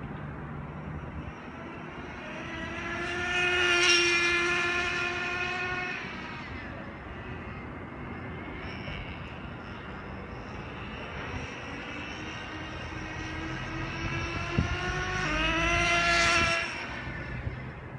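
Nitro RC car (Traxxas Nitro 4-Tec) with its small single-cylinder two-stroke glow engine screaming past on a speed run at three-quarter throttle, twice: a high buzzing whine swells as it nears and falls away, about 4 seconds in and again about 16 seconds in, the second pass cutting off quickly. A sharp click comes just before the second pass.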